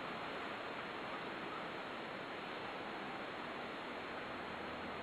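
Steady rushing background noise, even throughout, with no distinct events.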